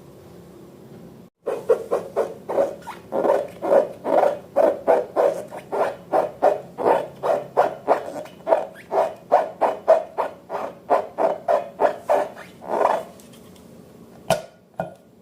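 Slime being squeezed and worked by hand, squelching in a steady rhythm of about three squishes a second, with a sharp click near the end.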